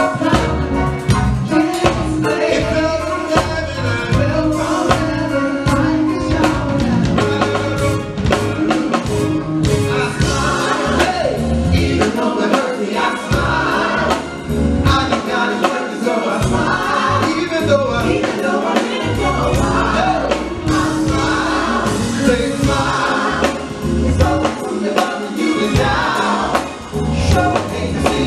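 Live gospel music: a lead singer with a group of backing vocalists, over a band of drums, electric guitar and keyboard.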